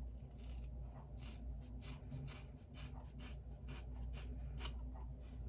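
Scissors snipping through hair in a quick series of short, crisp cuts, about two a second.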